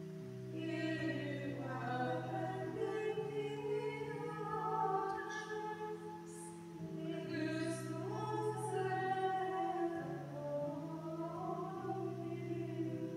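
A choir sings a slow liturgical chant with sung words, over sustained low accompanying notes that change pitch in steps.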